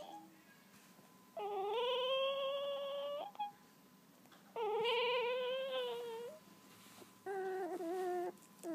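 Two-week-old wolf hybrid puppy crying: three long, wavering whining cries of a second or two each, with short pauses between, and a fourth starting at the very end.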